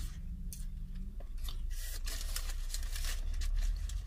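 Close-up chewing and crunching of crispy fried food. A run of crackly crunches starts about a second and a half in and lasts almost to the end.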